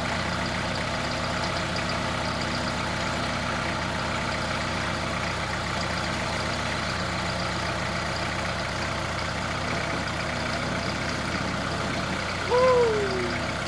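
Tractor engine running steadily while its front-end loader holds a load. Near the end a person calls out briefly.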